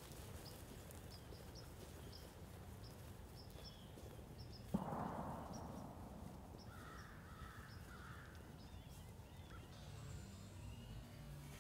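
Crows cawing three times a little after the middle, over small birds chirping with short high notes. Near the middle comes a single sharp bang that trails off over about a second.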